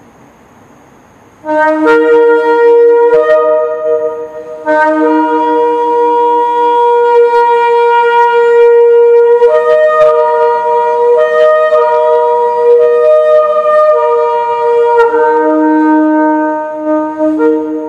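Long spiral Yemenite shofar blown in sustained, loud blasts starting about a second and a half in, the player slurring back and forth between a low note and a higher one, with a brief dip about four and a half seconds in.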